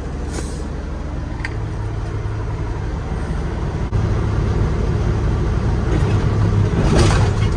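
Diesel engine of a Peterbilt 379 semi tractor running while it backs slowly under a lowboy trailer to couple up, getting louder from about four seconds in, with a few brief clicks.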